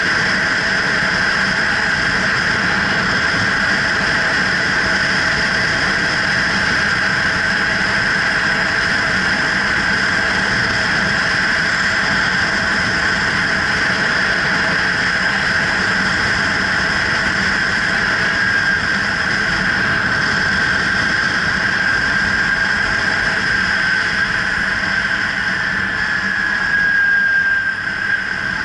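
Kawasaki Ninja 300's parallel-twin engine running steadily at cruise, heard from the rider's helmet-mounted camera. Near the end the engine note drops slightly in pitch with a brief swell in loudness.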